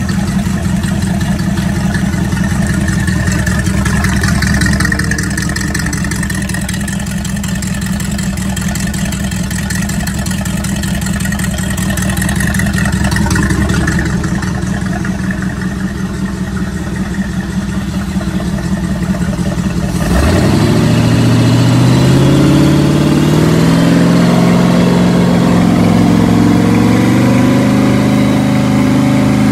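Freshly rebuilt Crusader 454 big-block marine V8 running on a test stand, with a steady pulsing idle. About two-thirds of the way through the sound changes abruptly and the engine's pitch climbs over several seconds as it speeds up, then holds at a higher speed.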